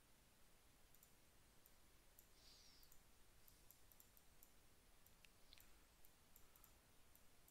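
Faint, irregular computer mouse clicks, a dozen or so, over near-silent room tone.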